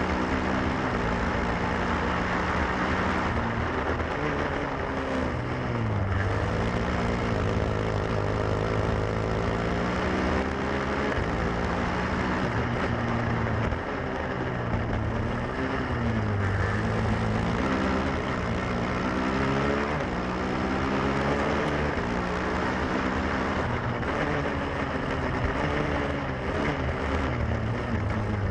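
Onboard sound of a Lifan-engined grass racing kart at race pace. The engine's pitch keeps dropping and climbing again, with several dips through the lap.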